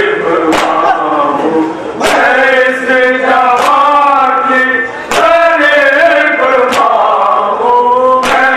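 A group of men chanting a noha, an Urdu Shia lament, together in a slow melody. About every second and a half comes a sharp, even beat, the strike of matam (hands beaten on the chest) keeping time.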